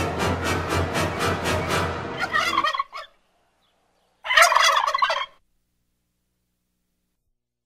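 Background music cuts off, and after a second of dead silence comes a single loud, warbling, turkey-like gobble about a second long, shouted by a person.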